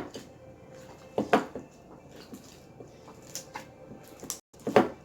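Sticky rice slime squishing and squelching as it is kneaded by hand with baby oil, a few short wet squishes.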